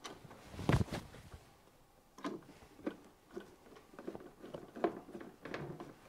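Plastic parts of a washing machine being handled and fitted during reassembly: one louder knock about a second in, then a series of lighter clicks and taps.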